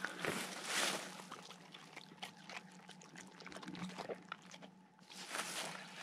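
A dog panting close by, in two loud spells about a second long, one near the start and one near the end, with many small clicks and crackles in between.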